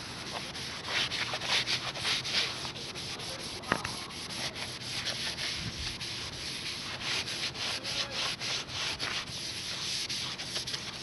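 Scrubbing sponge rubbing over a brass door kickplate in quick back-and-forth strokes, a steady run of scratchy swishes as the tarnish is scrubbed off.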